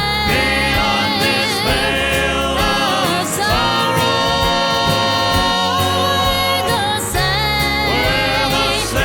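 Gospel song: several voices singing in harmony, with vibrato, over an instrumental accompaniment with steady bass notes.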